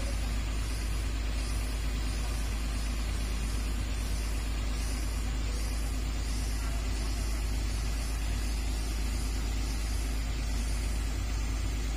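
Heavy diesel machinery running steadily, with an even low rumble that does not change.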